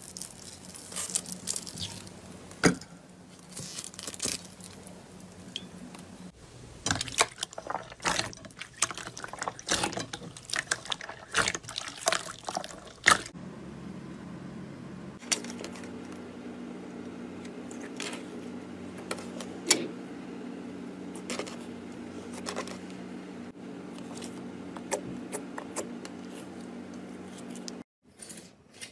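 Slime being handled: a dense run of small crackling clicks and pops as a layer of foam-bead slime is peeled and pressed. Later come sparser squishes and clicks from clear slime over a faint steady hum.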